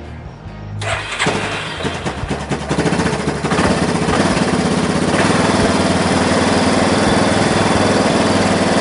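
1995 Yamaha Kodiak 400's single-cylinder four-stroke engine, with the choke pulled out, starting after its carburetor rebuild. It sputters unevenly for a couple of seconds from about a second in, catches, and settles into steady running from about three and a half seconds in.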